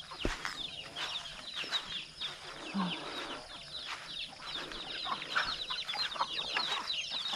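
Young chickens peeping, many short falling peeps overlapping, with a single low chicken call about three seconds in.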